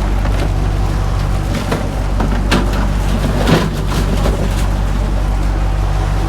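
Boat engine running steadily, with scattered knocks and clatters of gear on the deck.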